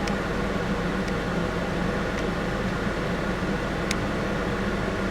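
Steady hum of an idling vehicle with a fan-like rush of air, as heard from inside a car with its ventilation running; a faint click about four seconds in.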